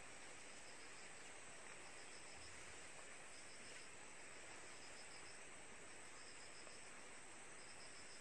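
Faint cricket chirping: short high trills repeating about once a second over a steady high hiss.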